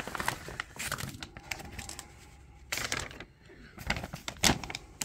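Plastic wrapping of a trading-card starter pack crinkling and rustling as it is handled and opened, with a couple of sharp clicks near the end as items are set down on a table.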